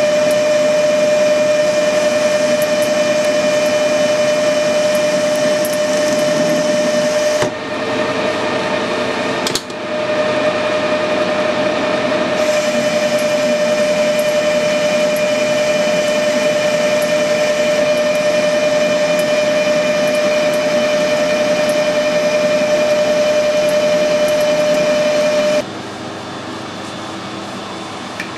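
Metal lathe turning a bronze casting under power feed: a steady gear whine over the sound of the cut. Near the end it drops to a quieter, lower hum.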